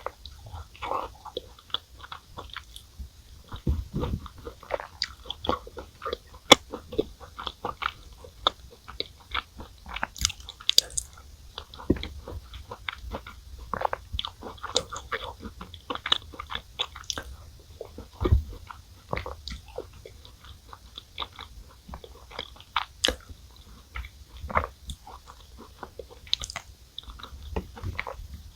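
Close-miked chewing and crunching of chocolate chip cookies eaten in milk: irregular wet crunches and mouth clicks that keep on throughout.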